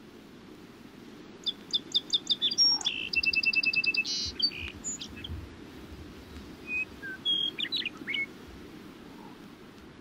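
Small birds singing: a run of quick high chirps and a fast, even trill from about a second and a half in, then a few scattered calls near the end, over a faint steady low background noise.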